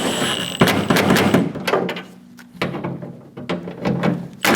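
A power tool's whine cuts off just after the start, then a series of knocks and clunks as metal door parts are handled and fitted against the van's rear door.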